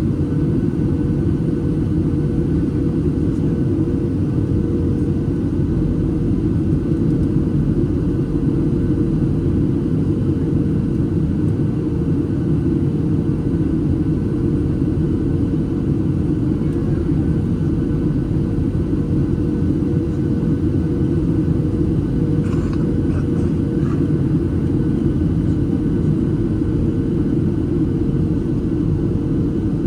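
Cabin noise of a Boeing 737-800 in flight, heard from a window seat: the CFM56-7B engines and rushing air give a steady, deep rumble with a steady hum over it.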